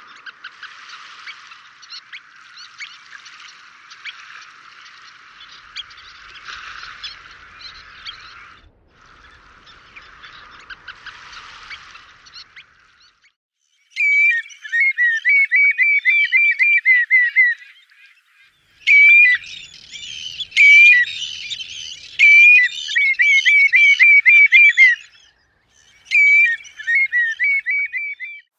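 A sanderling flock twittering, a dense chatter of many soft high calls, for about the first half. Then a common redshank gives loud piping calls in three bouts, each a quick run of repeated notes, with short pauses between.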